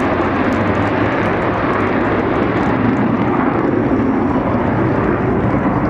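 Panavia Tornado GR4's twin RB199 turbofans in reheat (afterburner): loud, steady jet noise with a rapid crackle that thins out about halfway through.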